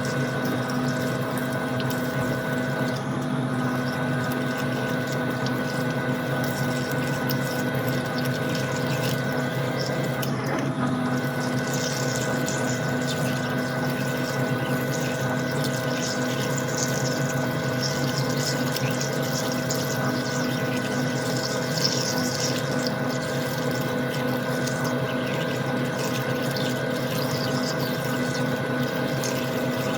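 Metal lathe running steadily with its coolant pump and flowing coolant, a constant hum under a watery hiss. The hiss grows brighter from about twelve seconds in.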